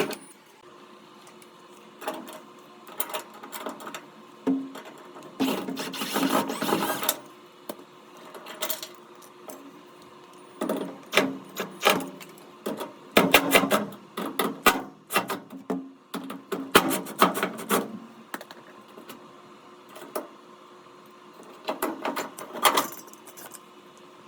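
Scattered bursts of clicks, rattles and scraping from the old dryer power cord being taken off by hand: screws worked loose at the dryer's cord connection and the cord pulled free.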